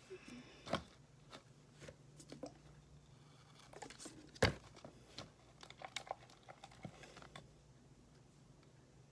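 Glue slime being stirred in a container: irregular small sticky clicks and crackles, with one louder knock about four and a half seconds in. The slime is partly activated with contact lens solution and still a little sticky.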